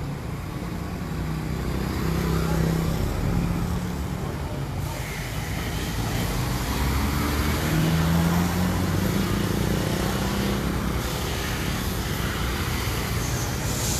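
A heavy vehicle's engine running steadily, its pitch rising and falling twice, about two and eight seconds in.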